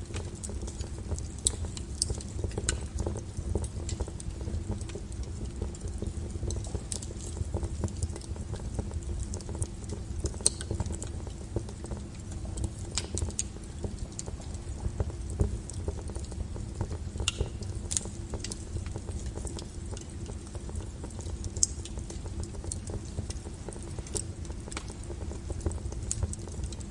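Wood fire burning, with irregular crackles and snaps over a steady low rumble.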